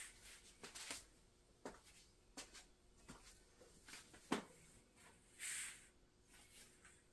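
Faint rustling of fabric backdrop sheets being straightened on the floor, with a few soft knocks and clicks; the sharpest click comes about four seconds in, followed by a longer rustle.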